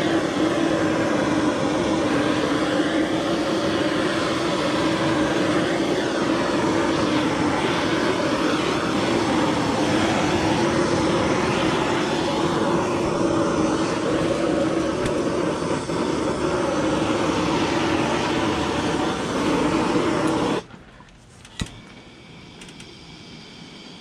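Handheld propane torch burning with a steady roar as its flame is played over the wood of a carving to darken it. The roar cuts off abruptly about 20 seconds in when the torch is shut off, followed by a single click.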